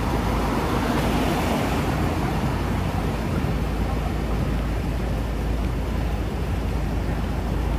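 Street traffic noise: cars driving past on the road, a steady low rumble, with one car passing close in the first couple of seconds.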